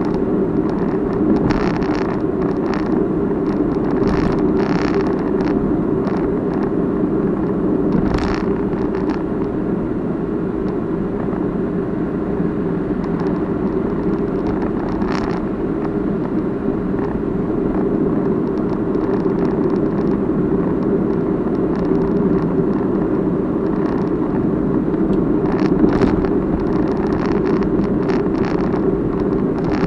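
Steady car cabin and road noise picked up by a Crosstour CT8500 dashcam, with bursts of clattering rattle from the camera's own body, worst in the first few seconds and again near the end. The rattle is a fault of this unit, which was judged defective and replaced.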